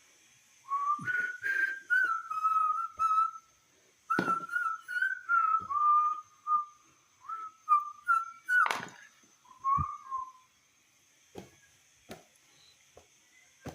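A person whistling a wandering tune in a few phrases, stopping about ten seconds in, with several sharp knocks along the way.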